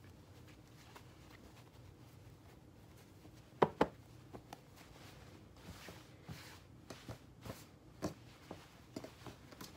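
Satin fabric being stretched and handled on a table: soft rustling, with two sharp knocks close together about three and a half seconds in and scattered light taps in the second half.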